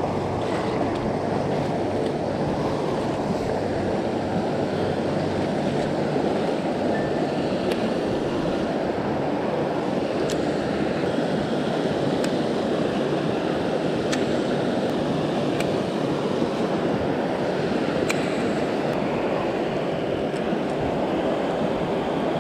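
River water rushing steadily over rocky riffles and a small weir, with a few faint clicks now and then.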